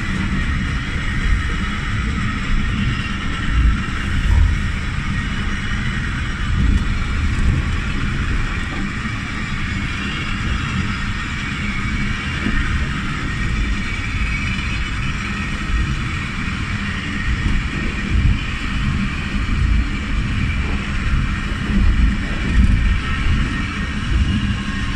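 Water-powered funicular car of the Lynton and Lynmouth Cliff Railway running down its steep track: a steady rumble and rushing noise.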